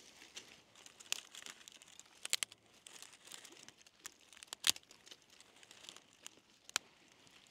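Crinkly material being handled and crumpled, with a few sharp clicks and snaps scattered through it; the loudest comes a little past the middle.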